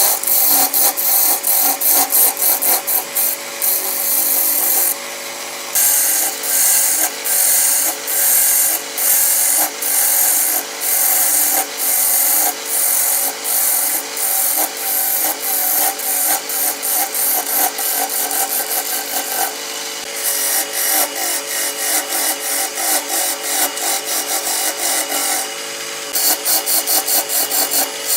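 Wood being turned on a homemade lathe: a tool scrapes the spinning wood in quick repeated strokes, several a second, over a steady hum, with brief pauses now and then.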